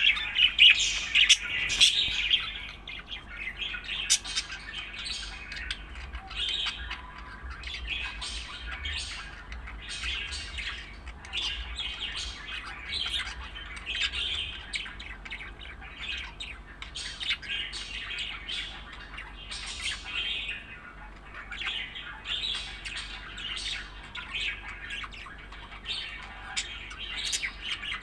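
Budgerigar chirping and chattering in rapid, continuous bursts, loudest in the first couple of seconds.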